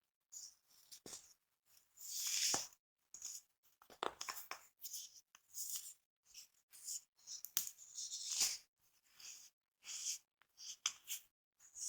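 A hand crushing blocks of dried, compressed powder, which crunch and crumble in gritty bursts. The bursts are short and irregular, a dozen or so, with brief silent pauses between them.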